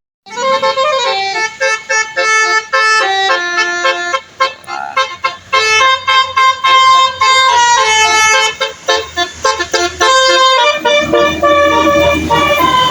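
Bus 'telolet' multi-tone musical air horn playing a quick tune of short stepped notes, toot after toot. Near the end it changes to a held horn chord with a low rumble underneath.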